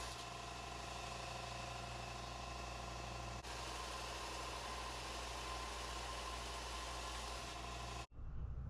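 Electric power sander running steadily while a steel knife blank is flattened on it, a constant motor hum with several steady tones; it stops abruptly about eight seconds in.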